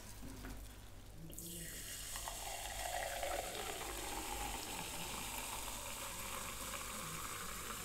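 Freshly opened cola fizzing with a faint, steady hiss that comes in about a second and a half in.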